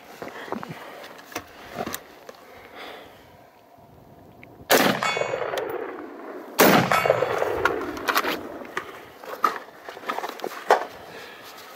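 Two shots from a Black Rain BRO Scout AR-15, about two seconds apart, each followed by a ringing decay. A few light clicks come in the first two seconds as a fresh magazine is loaded.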